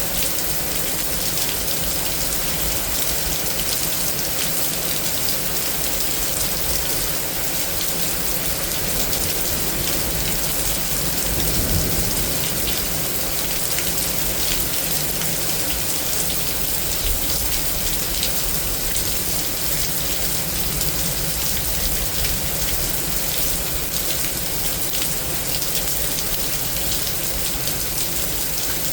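Heavy rain from a severe thunderstorm falling and pattering steadily on surfaces, with a brief low rumble about halfway through.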